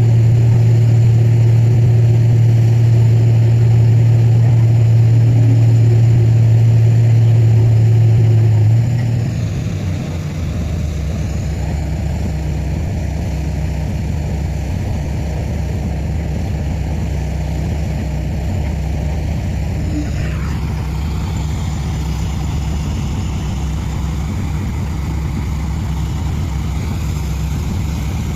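Borewell drilling rig running steadily under power. About nine seconds in, its loud low hum drops and the note changes. About twenty seconds in, a higher whine falls in pitch.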